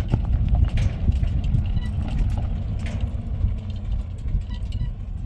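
A vehicle running with a steady low rumble and scattered knocks.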